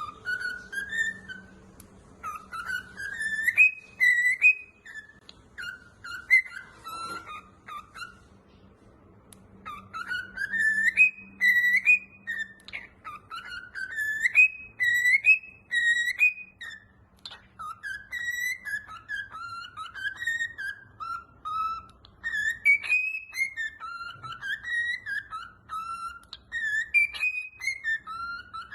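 Pet bird whistling phrase after phrase of rising and falling notes, with a short pause about eight seconds in.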